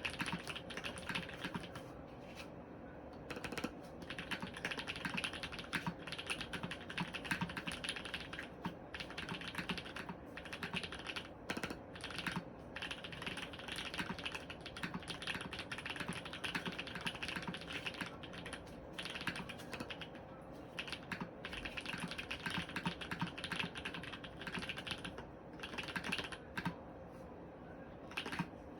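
Fast, continuous typing on an Orion V3 mechanical keyboard with lubed Holy Panda tactile switches, an FR4 plate and GMK keycaps, broken by a few short pauses.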